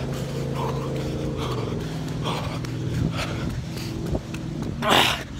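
A motor vehicle's engine running with a steady low hum, its pitch dipping slightly partway through, under a runner's heavy panting breaths, the loudest breath near the end.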